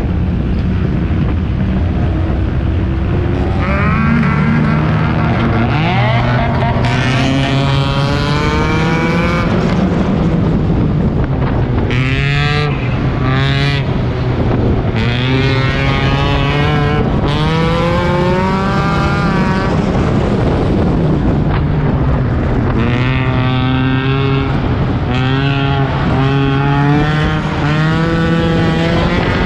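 Four-cylinder race car engine heard from inside the car, revving up and easing off again and again as it accelerates out of turns and lifts. The engine note climbs and falls about seven times.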